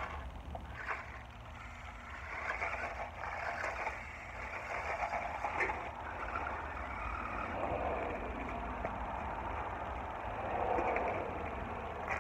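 Toy RC car driving on gravel, its motor and wheels giving an uneven noise that rises and falls over a steady low rumble.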